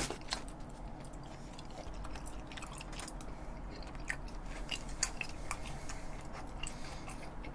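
A person chewing a mouthful of food close to the microphone: faint, irregular small clicks of mastication.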